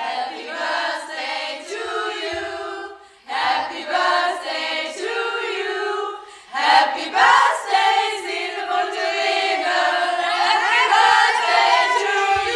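A group of young female voices singing together as a chorus, in phrases broken by two short pauses about three and six seconds in.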